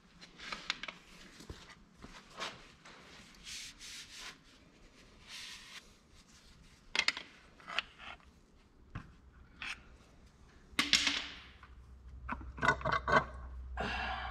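Irregular scraping and clicking of a hand tool worked against metal inside a tractor's rear axle brake housing, with a longer scrape near the end. A low steady hum comes in about two-thirds of the way through.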